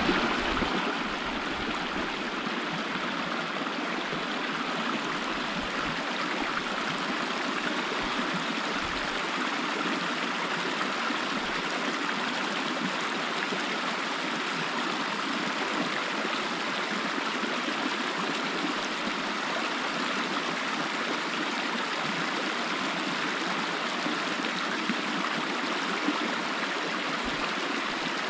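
Shallow creek running over cobbles and small riffles: a steady, even rush and babble of water.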